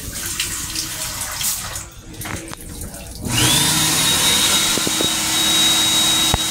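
A train restroom's sink faucet runs for about three seconds. Then an electric motor starts with a rising whine, runs loud and steady with a high whine over a rushing hiss for about three seconds, and winds down at the end.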